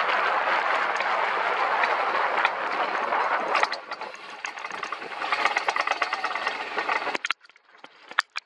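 Alpine coaster sled rolling on its steel tube rails, a steady rushing rumble that eases off about three and a half seconds in. A fast, dense clicking rattle follows, then the sound cuts off suddenly near the end, leaving a few sharp clicks.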